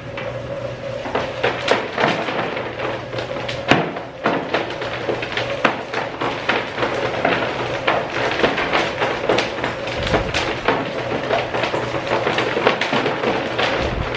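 Homemade worm-castings shaker running: an old workout machine's small electric motor and belt bounce a wire-mesh basket on all-thread rods, giving a steady hum with continuous irregular rattling and tapping. Worm castings are scooped onto the quarter-inch screen and sifted through it.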